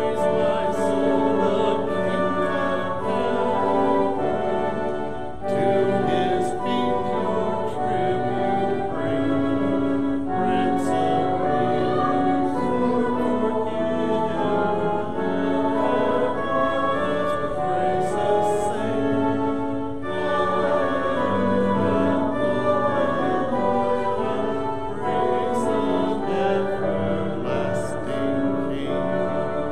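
A congregation singing a hymn with organ accompaniment: held, slow-moving notes in phrases, with short breaks between lines.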